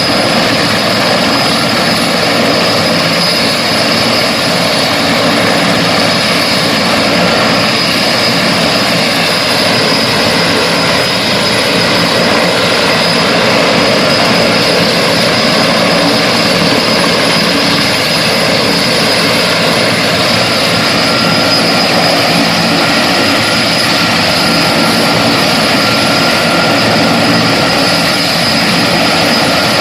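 Large firefighting helicopter's turbine engines and rotor running loud and steady, a constant rush with a steady high tone over it.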